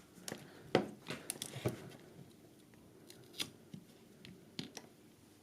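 Light, sharp clicks and taps of small tools and parts being handled at an electronics workbench, about seven of them, spread irregularly.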